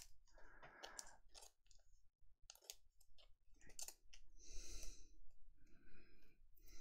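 Faint clicks and soft rustling of fingers handling a glossy trading card, tilting and turning it.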